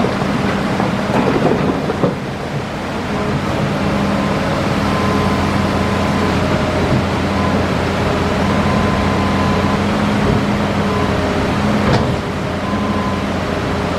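Hitachi Zaxis excavator's diesel engine running steadily under working load, with a burst of clatter about a second in and a single sharp knock near the end.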